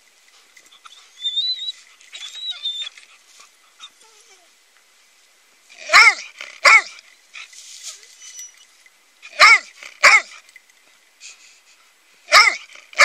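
Dog barking in pairs, two barks close together three times, beginning about six seconds in, after a few quieter seconds.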